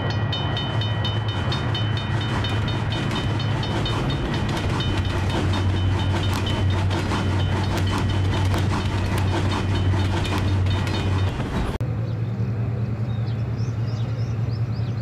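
Sound effects of a cartoon steam train passing a level crossing: a fast, even clatter of clicks over a steady low rumble, with a high repeating ding. About twelve seconds in it cuts abruptly to outdoor railway-station ambience: a steady low hum with a few high chirps.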